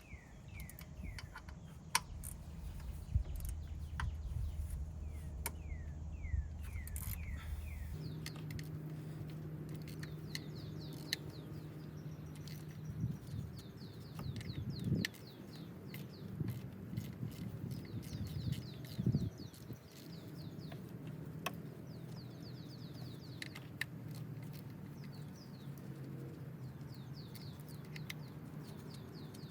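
Birds chirping in repeated short falling trills, over a low steady hum that steps up in pitch about eight seconds in, with scattered sharp clicks and knocks of hand tools on metal.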